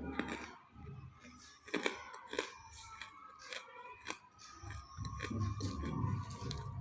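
Crunching bites and chewing of half-roasted clay pot pieces: a string of sharp, irregular crunches, with a low rumble joining about two-thirds in.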